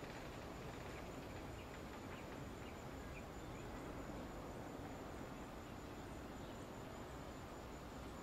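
Faint, steady outdoor ambience: an even hiss with a thin continuous high-pitched tone running through it, and a few faint short chirps between two and three seconds in.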